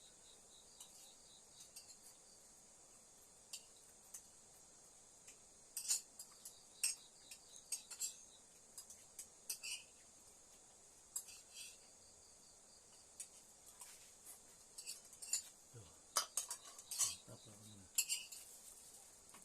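Scattered clinks and scrapes of a spoon against cookware while eating, in irregular clusters. A steady high chirring of crickets runs underneath.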